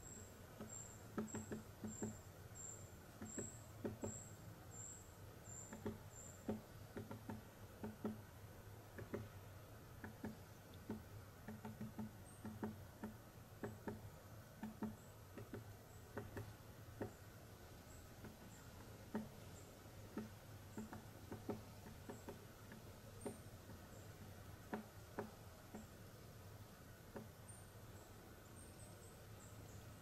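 Quiet summer woodland ambience: a thin, very high-pitched bird call repeated about twice a second for the first several seconds, then fainter single high notes now and then. Soft, irregular taps and rustles run throughout over a low steady background hum.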